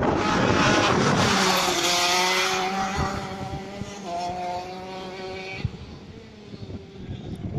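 Go-kart engine running at high revs as the kart laps the track, a steady high-pitched drone that fades away after about five and a half seconds. Wind buffets the microphone at the start.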